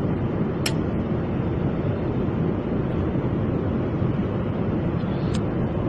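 Steady rushing cabin noise of an Airbus A330 airliner in flight, from its engines and the air streaming past the fuselage. A short sharp click sounds under a second in, and a fainter one near the end.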